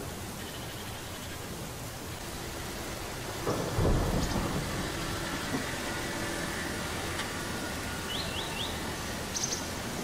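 Low rumbling noise, with a Kubota compact tractor's diesel engine running steadily from about four seconds in as it carries a heavy load on its front loader.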